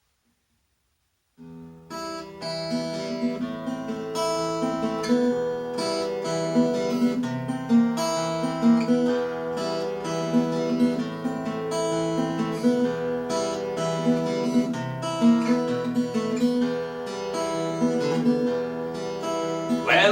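Acoustic guitar playing a blues intro, picked and strummed in a steady rhythmic figure. It starts after about a second and a half of silence.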